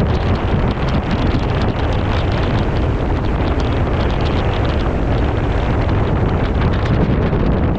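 Strong gale wind blowing hard across the microphone: a loud, steady rush with a heavy low rumble and constant buffeting.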